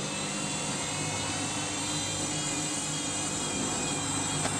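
Overloaded Candy washing machine spinning its drum at steady speed, the motor giving a steady whine with a continuous rush beneath it; the load is running fairly balanced. A faint click near the end.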